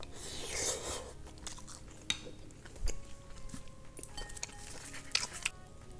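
Close-miked chewing of a spoonful of fried rice mixed with duck intestines, duck gizzard and braised beef: a short noisy mouth sound in the first second as the spoon goes in, then wet chewing with scattered small clicks.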